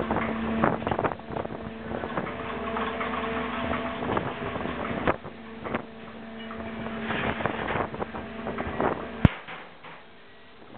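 Fishing boat's machinery humming steadily under a rushing noise, with irregular knocks and clatter. A sharp knock comes about nine seconds in, after which mostly the hum is left.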